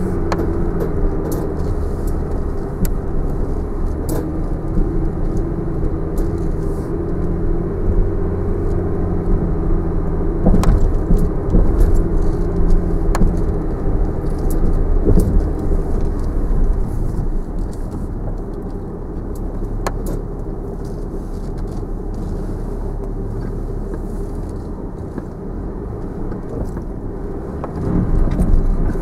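Land Rover Discovery 4 crawling in low range over a rutted, muddy track, heard from inside the cabin: a steady low engine drone with a few sharp clicks and knocks from the bumps. It gets a little louder and rougher for a few seconds about a third of the way in.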